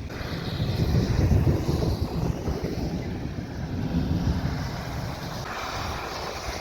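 Strong thunderstorm wind gusting and buffeting the microphone with a low rumble, a rushing hiss rising briefly near the end.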